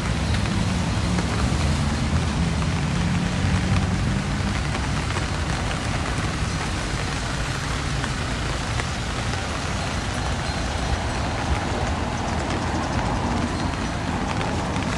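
Steady hiss of rain with street traffic; a vehicle's engine hums close by for the first few seconds, then fades into the rain and traffic noise.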